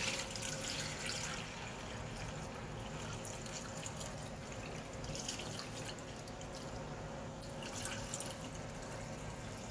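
Dirty paw-wash water poured out of a plastic mixing bowl into a sink, splashing and trickling down the drain unevenly.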